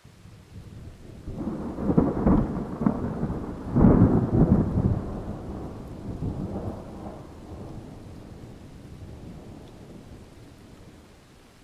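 A thunderclap in a rainstorm: loud cracking rumbles peak about two and four seconds in, then the thunder rolls on and slowly fades away, with rain hissing steadily underneath.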